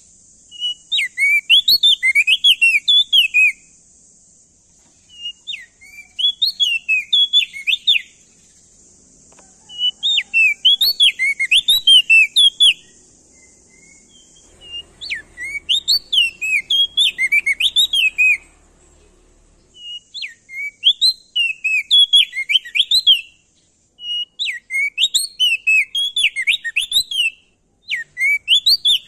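Crested white-eye (opior jambul) singing: repeated two-to-three-second phrases of quick, sharply rising and falling whistled notes, starting about every four seconds.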